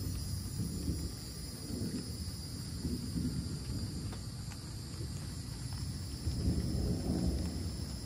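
Distant thunder rumbling low and long, swelling about six seconds in, over a steady high-pitched whine.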